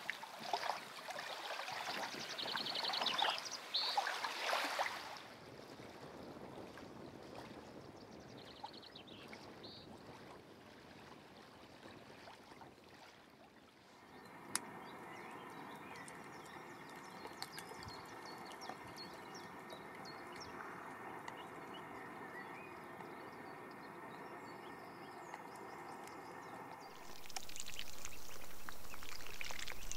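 Outdoor ambience at a lake: short high bird-like chirps in the first few seconds, then soft steady water sounds. About three-quarters of the way through, a louder steady hiss of water sets in.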